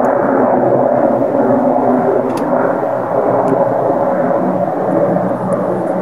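A steady, loud droning rumble with several held humming tones running through it, which the recorder takes for one of the weird sounds filling the night sky.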